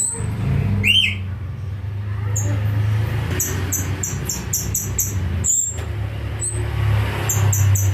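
A small songbird, known locally as the geri, calling in runs of short, high chirps repeated about five times a second, with single calls between the runs. A steady low hum runs underneath.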